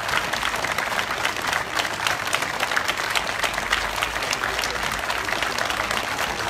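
Large crowd applauding: a dense, steady clatter of many hands clapping.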